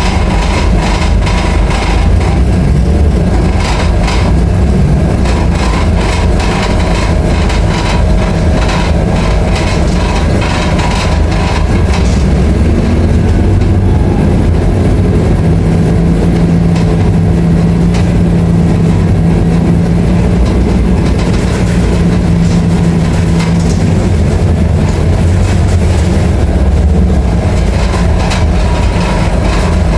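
Scania K310IA articulated bus's diesel engine running under way: a loud, steady low rumble with rattling throughout, and a steady hum that joins in through the middle stretch.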